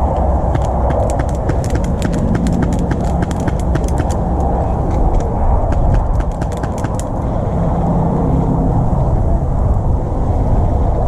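Airsoft fire in woodland: a rapid, irregular run of sharp ticks from airsoft shots and BBs, stopping about seven seconds in, over a steady low rumble.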